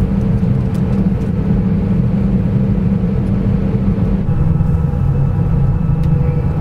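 Airbus A320 cabin noise as the aircraft is pushed back: a steady low rumble and hum with several steady tones, the lowest of which shift down about four seconds in.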